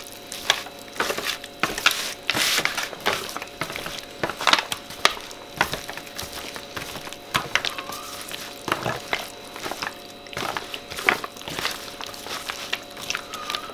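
Gloved hands mixing steak tips through a thick yogurt marinade in a thin disposable aluminium foil tray: irregular wet squishing with crackles and clicks from the foil.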